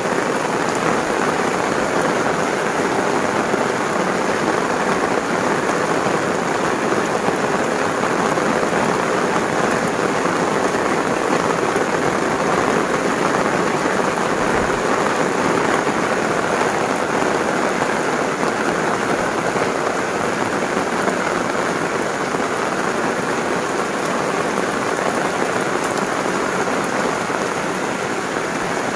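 Heavy tropical rain falling steadily, a dense even patter on the concrete lane and plants, heard from under an umbrella.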